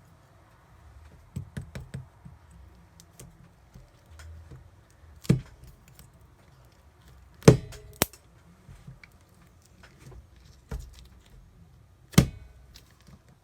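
Hard plastic containers and a spoon being handled and set down on a table while slime-making materials are got ready: light clicks and taps throughout, with a few sharp knocks, loudest about seven and a half seconds in.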